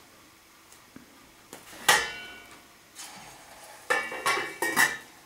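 Metal cooking utensil clanking against a frying pan on a stovetop: one sharp clank about two seconds in, then a quick run of clatters near the end, the metal ringing briefly after the strikes.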